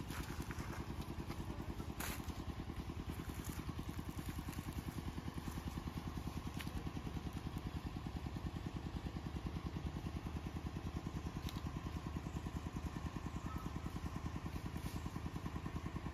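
An engine running steadily at an even speed with a rapid, regular beat, and a few faint clicks.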